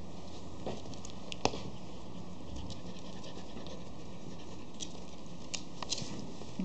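Scattered light clicks and taps over a steady hiss: a Schipperke puppy's claws tapping on a wooden surface as it plays with a hand. The sharpest tap comes about a second and a half in, and a few more fall near the end.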